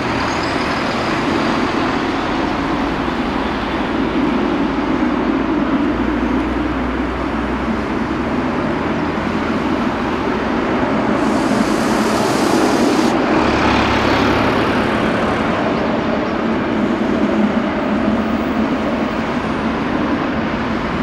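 Boeing 787-10's twin Rolls-Royce Trent 1000 turbofans running at takeoff thrust: a steady, loud jet rumble as the airliner lifts off and climbs away, with a brief burst of hiss about halfway through.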